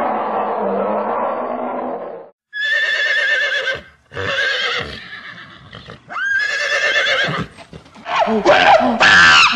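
A horse neighing: three whinnies with a wavering pitch, beginning about two and a half seconds in. Before them a low, drawn-out animal call, and near the end shrill sliding squeals.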